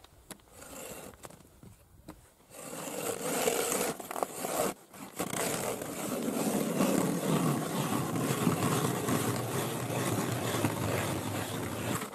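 Hand-cranked ice auger boring into river ice, its blades grinding and scraping steadily as it is turned. The scraping starts about two and a half seconds in and breaks off briefly near five seconds.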